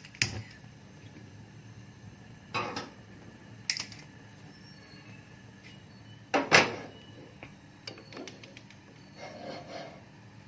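Kitchen handling sounds: a few separate knocks and clatters of pots and utensils, the loudest about six and a half seconds in, followed by a few light clicks.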